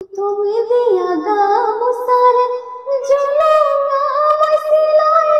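A teenage girl singing, holding long notes that bend slowly up and down in pitch.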